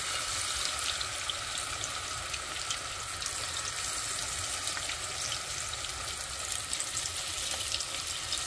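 Battered sunfish and perch fillets frying in a pan of hot oil: a steady sizzle with a fine crackle of popping oil.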